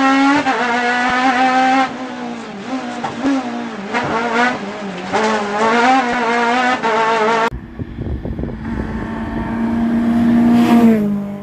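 Rally car engine running hard, its pitch climbing and dropping through gear changes. Then a rally car approaching at steady high revs, growing louder, and easing off just before the end.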